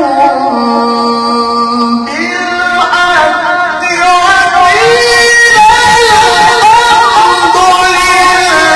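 A man reciting the Qur'an in melodic tilawah style, holding long, ornamented notes. The voice starts on a low held note, then climbs to a higher, louder register about four seconds in.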